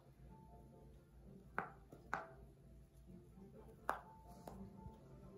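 A small dog biting a small rubber toy ball, giving three sharp clicks of teeth on the ball.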